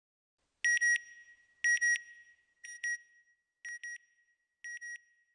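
Electronic beeps in quick pairs, one pair about every second, each beep a short high tone. The first two pairs are louder with a brief echo trailing off; the later pairs are quieter.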